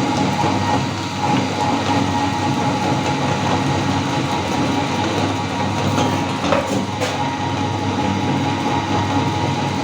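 Meat grinder running steadily as it grinds colourful chocolate candy, with a few brief clicks about six to seven seconds in.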